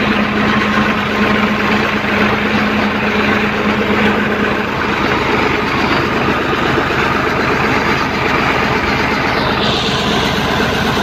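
Fiat 480 tractor's three-cylinder diesel engine running steadily while it drives a tube-well pump, mixed with water rushing from the well's outlet pipe into the channel.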